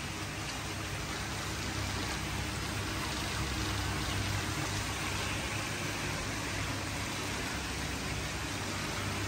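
Steady splashing of water pouring from a weir inlet into a koi holding tank, over a low steady hum.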